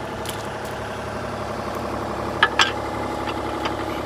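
Kubota U35 mini-excavator's diesel engine idling steadily, with two quick sharp clicks a little over two seconds in as the bucket pin is worked into the linkage.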